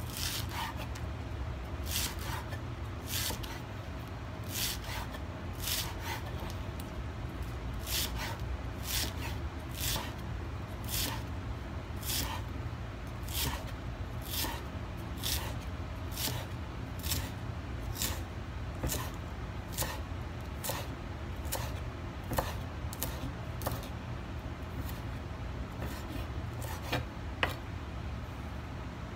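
Chef's knife chopping chives on a thick round wooden chopping block: short crisp cuts at an even pace of about one a second, over a steady low hum.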